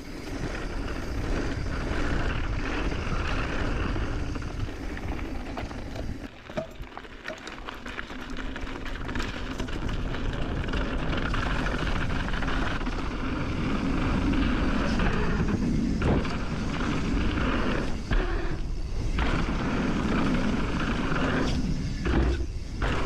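Mountain bike descending a dirt trail, heard from a helmet camera: a steady rush of wind and tyre noise with the bike rattling. The noise dips briefly a few times.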